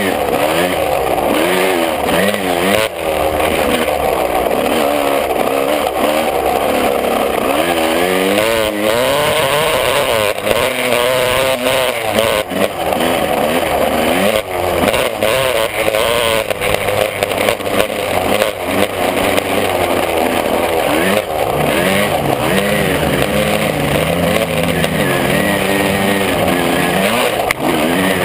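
125 cc two-stroke motocross bike engine revving hard as it is ridden, heard from on board. Its pitch climbs and drops again and again with the throttle and gear changes.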